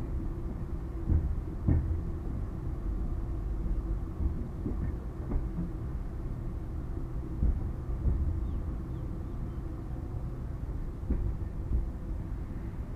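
Indian Railways passenger coach running on the line, heard from its open door: a steady low rumble of wheels on rail, with irregular clanks as the wheels pass over rail joints.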